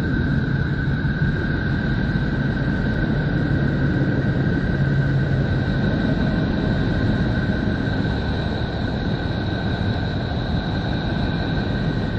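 Neptune's radio and magnetic-field emissions, recorded by Voyager 2 and converted to sound: a steady dense hiss over a low drone, with two steady high whistling tones.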